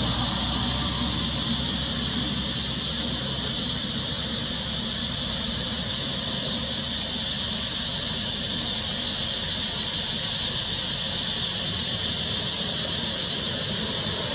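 Steady, high-pitched outdoor hiss with a low rumble beneath, unchanging throughout.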